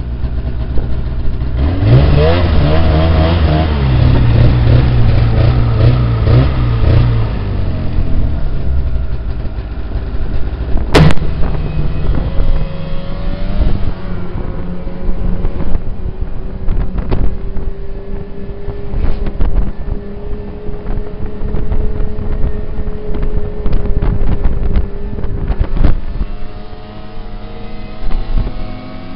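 Snowmobile engine running under way, its pitch climbing as it revs up about two seconds in, then holding a steady note that slowly rises. A single sharp click about eleven seconds in.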